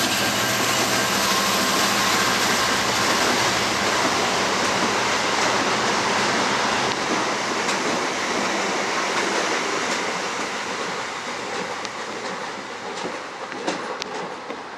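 Talgo trainhotel coaches hauled by a Renfe 334 diesel locomotive running past, with a steady rumble of wheels on rail. The locomotive's engine hum fades out about halfway through, and the rolling noise then dies away, with a few sharp clicks near the end.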